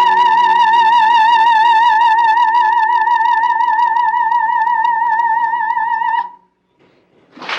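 Coloratura soprano holding a long, high final note with a steady, even vibrato over a sustained low accompaniment chord; the note cuts off about six seconds in. After a moment of near silence, a loud rush of noise starts right at the end.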